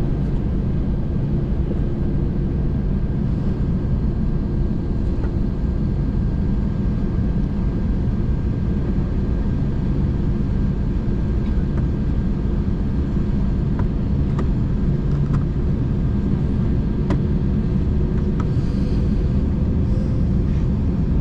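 Steady low rumble of an Airbus A321's engines and airflow heard inside the passenger cabin, with a few faint clicks.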